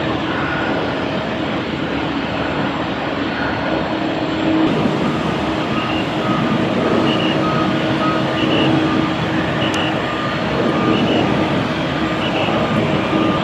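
Jet airliner engines running steadily, a constant loud rushing noise with a low hum held through it.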